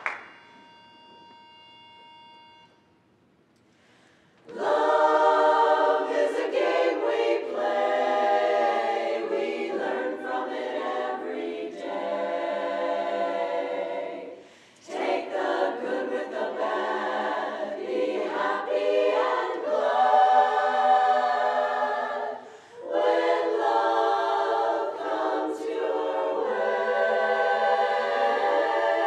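A pitch pipe sounds one steady note for about two and a half seconds. Then, about four and a half seconds in, a women's barbershop chorus starts singing a cappella in close four-part harmony, pausing briefly twice.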